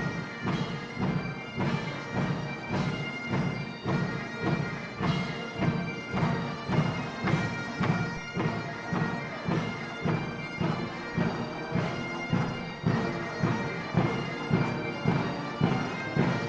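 Pipe band playing a march: bagpipes over a steady drone, with a drum beat about twice a second.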